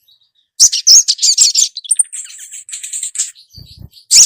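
Female ruby-cheeked sunbird (sogon) calling: rapid, high chattering chirps with a thin high whistle, starting about half a second in and ending in a loud burst of chirps. It is the female's call to a male.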